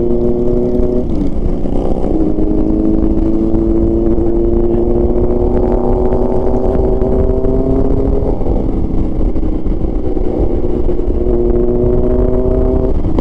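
Motorcycle engine running under way, its pitch rising slowly in each gear and dropping back at gear changes about a second in and again near eight and a half seconds, with a steady low rumble of wind and road noise under it.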